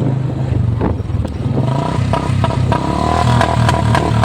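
Royal Enfield Bullet motorcycle's single-cylinder engine running with a low, uneven thump, with scattered clattering clicks. A steady higher whine joins about a second and a half in.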